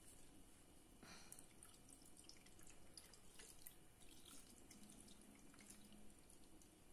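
Cherry syrup being poured from a saucepan, trickling faintly through a fine mesh sieve into a pot, with scattered small drips and ticks.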